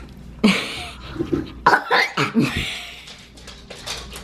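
A young boy coughing and gagging over a mouthful of lettuce, an overdramatic, put-on reaction, in a few loud bursts between about half a second and two and a half seconds in, with falling whiny cries among them.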